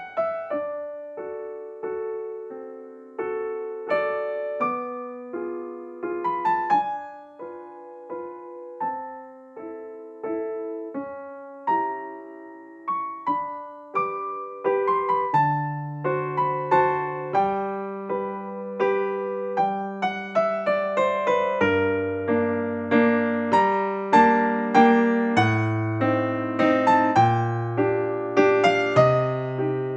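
Background piano music, gentle struck notes that die away, with lower bass notes joining about halfway through.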